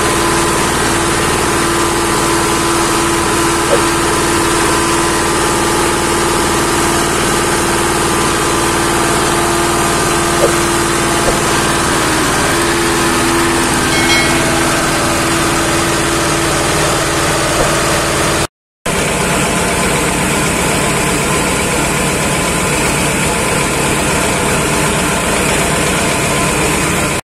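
Stationary engine running steadily while it drives a wood crusher grinding wood offcuts into sawdust, with a few faint sharp knocks. The sound drops out for a moment about two-thirds of the way through.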